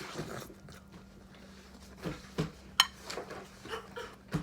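Eating sounds: short, irregular chewing and mouth noises starting about two seconds in, with one sharp click a little under three seconds in, over a faint steady hum.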